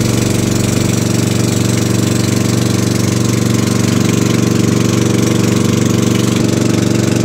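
Outrigger boat's (bangka's) engine running steadily under way, a constant pitched chugging with a fast even beat and a steady hiss on top.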